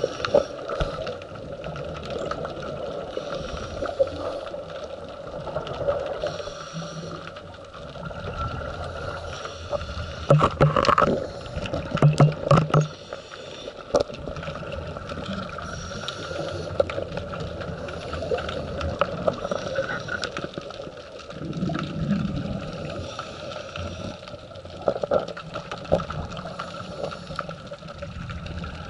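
Underwater sound of a scuba dive: a diver's breathing bubbles gurgling over a steady underwater hum, swelling every few seconds. A cluster of sharp clicks and knocks comes about ten to thirteen seconds in.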